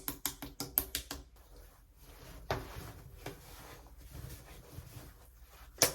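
Light clicks and taps from handling small skincare bottles and containers: a quick run of ticks in the first second or so, then a single sharper click about two and a half seconds in, and a few fainter ones.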